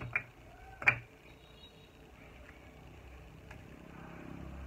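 Two sharp clacks of clay bricks set down on a brick stack, about a second apart, the second louder. Then a vehicle's low rumble slowly grows louder.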